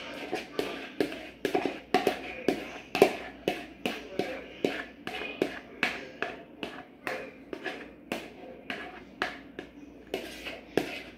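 A utensil tapping and scraping inside a bowl held upside down over a pot, knocking the last of a sauce out: rapid, uneven taps, two or three a second.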